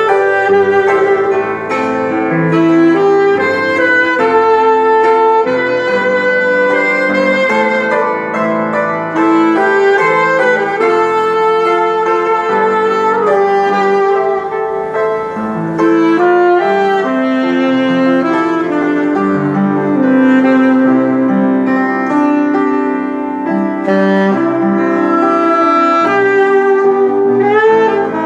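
Saxophone playing a slow melody with held, wavering notes over upright piano chords.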